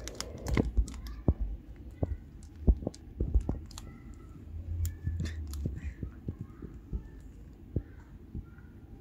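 Tabby cat eating wet food from a plate: quick irregular wet chewing and smacking clicks, thickest in the first few seconds and thinning out later.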